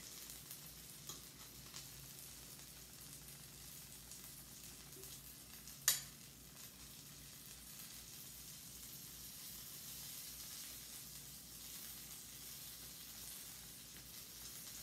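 Butter sizzling faintly in a frying pan, with one sharp click about six seconds in.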